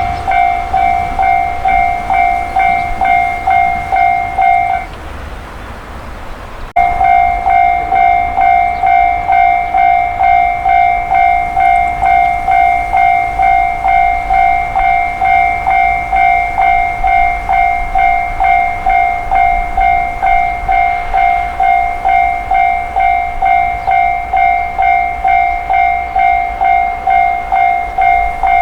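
Japanese railway level-crossing alarm ringing its steady kan-kan-kan, about two strokes a second. A few seconds in it breaks off for about two seconds, then comes back sharply and rings on.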